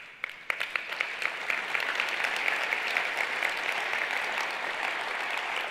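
Audience applauding: a few separate claps at the start that swell within about a second into steady applause.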